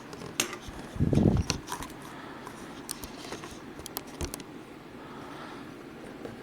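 Small clicks and taps of hands handling a laptop LCD panel and its display-cable connector, with a soft bump about a second in; quieter after about four seconds.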